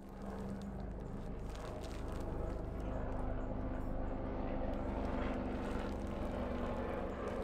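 A steady engine drone that builds a little over the first few seconds, with faint crinkling of a plastic nursery bag being worked off a root ball.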